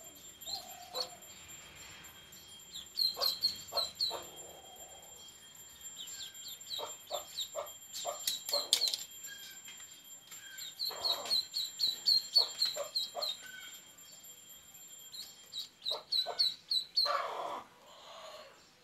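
Duckling peeping in runs of short, high, falling peeps, several a second, in about five bursts, with a few soft knocks and a short rustling noise near the end.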